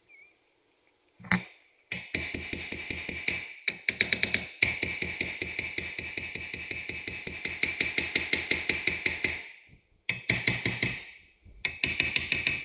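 Hammer striking steel wheel-hub or brake parts in fast runs of blows, about eight a second, each blow ringing. Short pauses come between the runs, and one single knock comes first.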